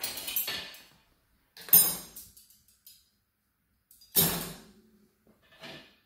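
Dishes and cutlery clattering as a dishwasher is loaded: four separate short clinks and knocks, the loudest about two seconds in and about four seconds in.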